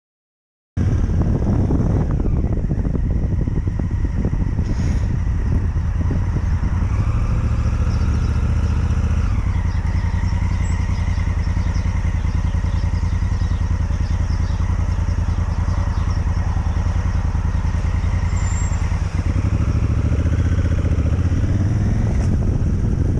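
Honda Africa Twin CRF1000L parallel-twin motorcycle engine running under way, cutting in abruptly just under a second in. Its pitch climbs, drops sharply about nine seconds in, and climbs again near the end.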